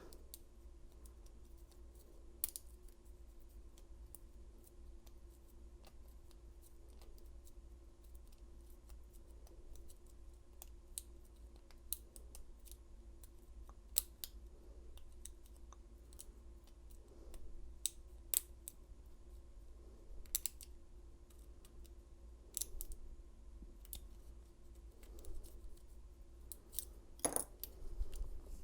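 Lock pick and tension wrench working the pins of an old Yale padlock: faint, irregular metallic clicks and scrapes as the pins are lifted, with a louder click near the end.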